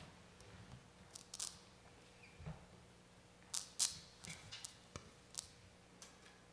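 Quiet room with a low steady hum and about ten faint, scattered clicks and rustles from the seated congregation during silent prayer, the loudest a little before the middle.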